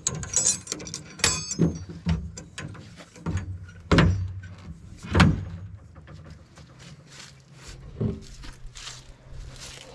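Metal bars of a fold-down boat blind frame being lowered onto the boat: rattling and clanking, with two loud knocks about four and five seconds in and another near the eight-second mark.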